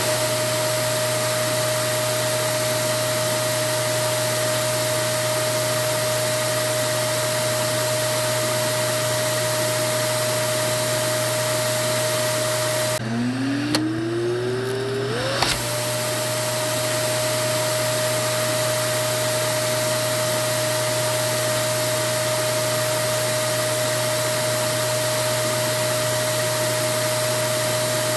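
Vacuum cleaner motor running steadily with a hiss of rushing air and a high, held whine. About halfway through, the air noise drops out for a couple of seconds and the whine climbs back up in pitch to full speed, as the motor spins up again.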